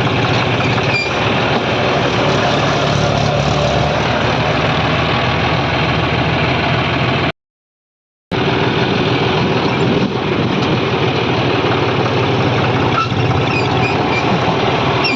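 Heavy diesel engine running steadily, from backhoe-loader and tractor work. The sound cuts out completely for about a second midway, then carries on as before.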